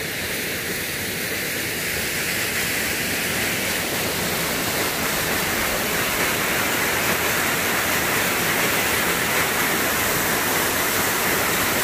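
A small waterfall pouring over rock ledges into a pool: a steady rushing of water that grows louder over the first few seconds and then holds.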